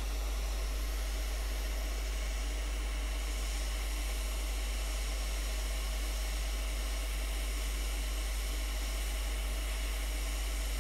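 Hot air rework station blowing a steady hiss of air onto a surface-mount chip to melt its solder for removal, with a steady low hum underneath.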